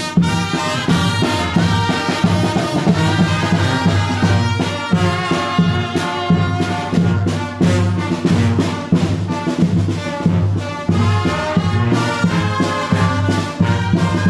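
Brass band music: brass instruments playing a melody over a strong low bass line.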